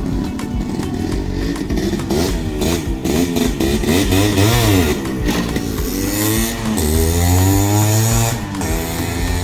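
Yamaha RX 100's two-stroke single-cylinder engine being revved, the pitch climbing and dropping several times.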